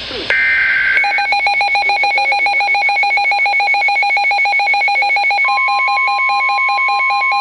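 Midland WR-100 NOAA weather radio sounding an alert. A short screechy burst of EAS/SAME header data is followed, about a second in, by the radio's rapid pulsing alert beeps. About five seconds in, the steady single-pitch NOAA Weather Radio warning alarm tone joins the beeps, marking the start of the next warning.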